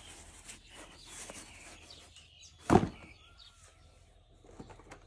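Toys and packaging being handled: light rustling and small clicks, with one sharp knock nearly three seconds in.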